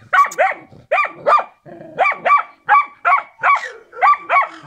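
Karelian Bear Dog barking at game in a trap, a rapid run of about a dozen sharp barks, often in pairs, with a couple of short pauses: the dog bays at the cornered animal as it is trained to do.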